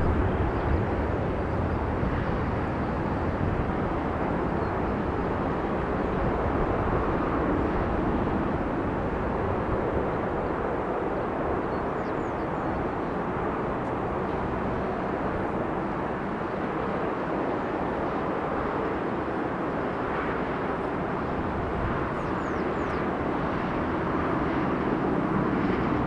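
Jet aircraft engines running, a steady rushing noise with no marked rise or fall.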